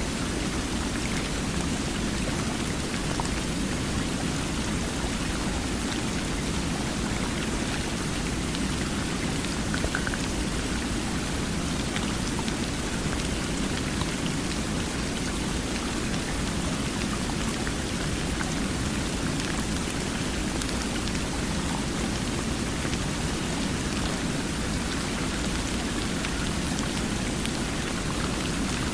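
Steady rush of water, even and unchanging, with faint scattered drop-like ticks on top.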